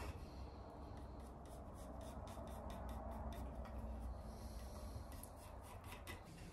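Pencil scratching on a wooden board in short repeated strokes while marking out a part, faint, over a steady low hum.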